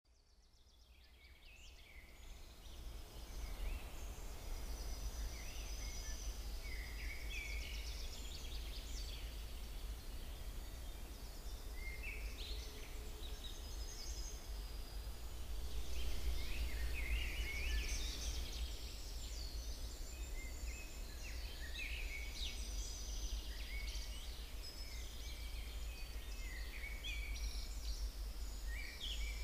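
Several songbirds singing at once in short, overlapping phrases, a dawn chorus, over a steady low hum. The sound fades in over the first few seconds.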